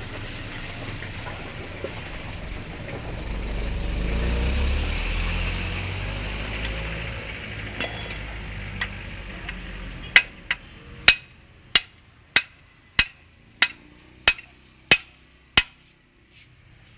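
A low rumble swells and fades, then about ten sharp metal taps come a little over half a second apart, typical of hammering on motorcycle engine parts during a teardown.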